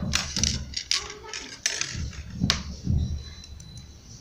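Handling sounds of knitting being picked up and moved: several sharp clicks, as of knitting needles touching, among rustles and low muffled bumps.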